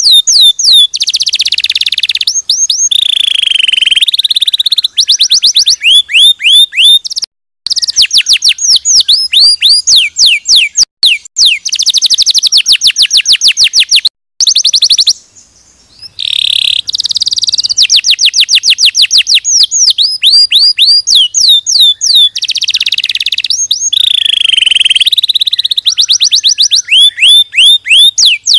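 Domestic canary singing a long, loud song of fast trills: rapid runs of repeated down-sweeping whistled notes alternating with buzzy rolls, broken by a few short pauses.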